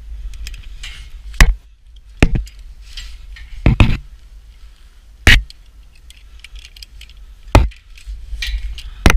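About six sharp metal clanks, a second or two apart, as a climber's lanyard hooks and gear knock against the steel members of a lattice tower, over a low rumble of wind on the microphone.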